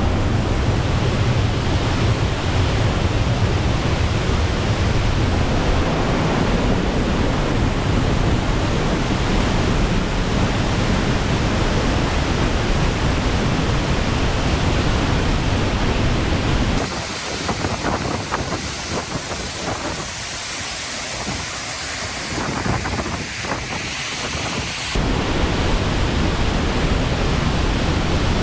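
Steady rushing of a large waterfall close by. About two-thirds of the way through it turns thinner and a little quieter for several seconds, then comes back full.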